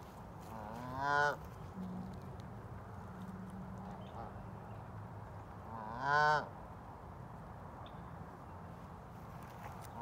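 Canada goose honking twice, about five seconds apart: each call is a short, loud honk that slides upward at the start.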